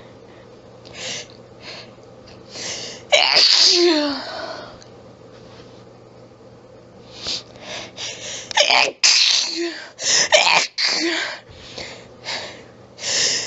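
A person's harsh, throaty sneezes in a sneezing fit. A few quick in-breaths lead up to one loud sneeze about three seconds in. After a pause, a run of hitching breaths gives way to several sneezes in quick succession, and more in-breaths build toward the next one near the end.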